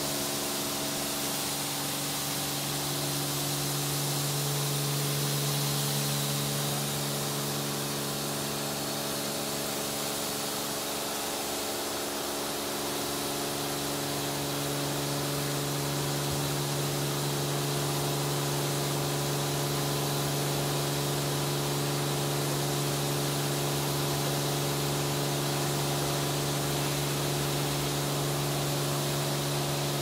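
Stargate S6 automatic rollover car wash running: a steady hiss of water spray over the machine's steady electric hum. The hum fades for a couple of seconds about a third of the way in, then returns.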